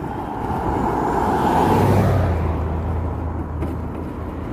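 A motor vehicle passing close by on the road: tyre and engine noise swell to a peak about two seconds in, then fade.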